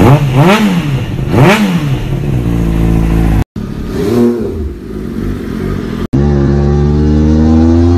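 Honda CBR600RR inline-four revved sharply twice at standstill, then settling to a steady idle. After a cut, an MV Agusta F3 triple is blipped once and falls back toward idle. After another cut, a motorcycle engine runs steadily with its pitch slowly rising.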